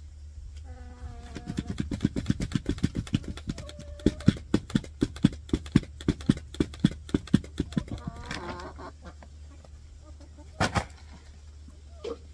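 Poultry feed poured from a bag into a galvanized metal trash can as the bag is shaken, rattling against the metal in quick even pulses, about four a second, for several seconds. A chicken calls near the start and again about eight seconds in, and a single knock comes about two seconds before the end.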